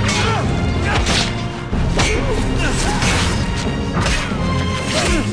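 Film battle soundtrack: weapon clashes and blows striking about once a second over film score music.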